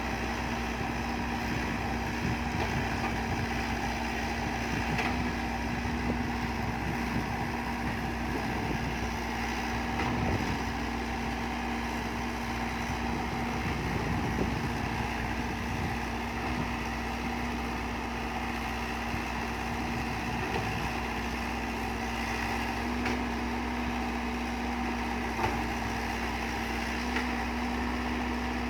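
Excavator engine running steadily: a constant hum with one even tone that neither rises nor falls.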